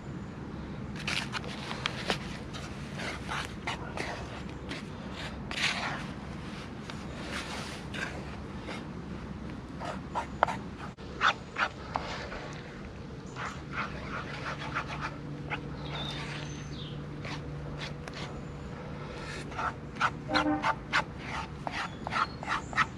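A dog panting, amid scattered clicks, scrapes and rustling, with a quick run of breaths about twenty seconds in.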